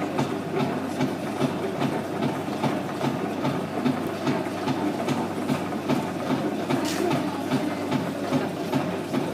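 Potter's wheel running under its pedal, a steady hum with an even rhythmic knock about four times a second.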